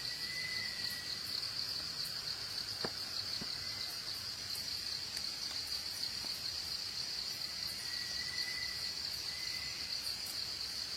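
Insects droning in a steady, high-pitched chorus, with a faint short whistle near the start and again toward the end, and a soft click about three seconds in.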